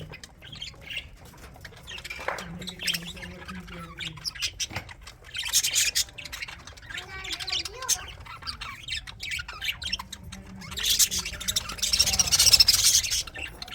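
Budgies chattering and squawking in bursts, with the loudest, densest outburst of squawks in the last few seconds.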